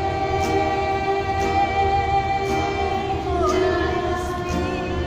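A small group of women singing a worship song together to an acoustic guitar. They hold one long note for about three seconds, then step down to a new note.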